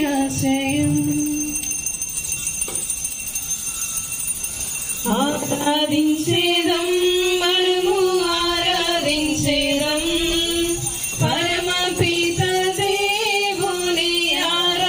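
A woman singing a devotional hymn into a microphone, with a short break in the first few seconds and the melody resuming about five seconds in. Small hand bells jingle along with the singing.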